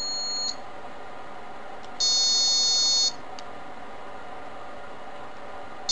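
Piezo-electric buzzer sounding a steady high-pitched tone. A quieter tone driven at 3 V stops about half a second in. A louder one at 6 V sounds for about a second, starting two seconds in: more voltage, more volume.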